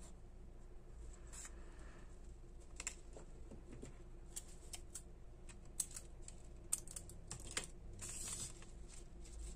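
Quiet handling sounds of hand sewing: scattered small clicks and ticks of fingers working grosgrain ribbon and pulling needle and thread while tying off a gathering stitch, with a brief rustle about eight seconds in.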